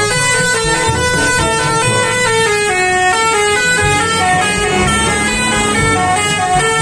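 Telolet bus horn: a multi-tone horn playing a quick tune of stepped notes.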